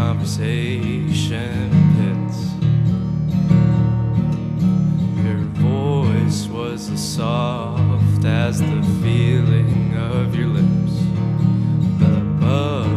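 Music: an acoustic guitar strumming over sustained low notes, with a wavering melody line above it that comes and goes.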